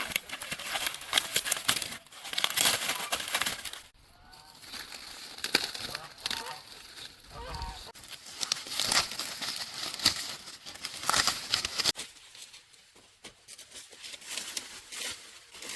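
Dry plant material rustling, crinkling and tearing in repeated bursts, with a few short fowl calls in between.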